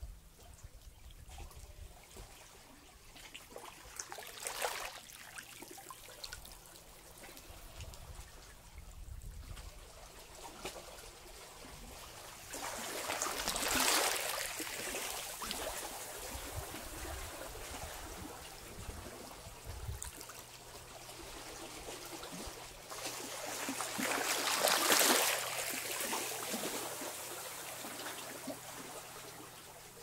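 Small sea waves washing and trickling over a rocky shore. The wash swells up three times, about every ten seconds, as each wave comes in, loudest about halfway through and again near the end.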